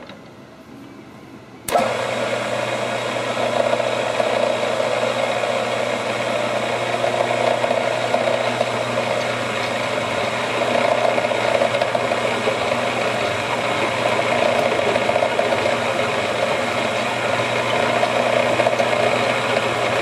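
A machine spindle motor switches on abruptly about two seconds in and runs steadily, turning a tap used as a hob that cuts gear teeth into a steel bolt pressed against it by hand.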